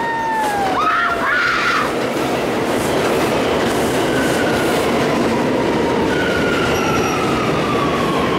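An R179 subway train pulls into an elevated station and slows, with a steady rumble of wheels on the rails. High whining tones slowly fall in pitch as it brakes.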